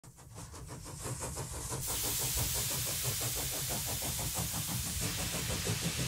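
A small engine running with a rapid, even beat, fading in at the start, with a hiss joining about two seconds in.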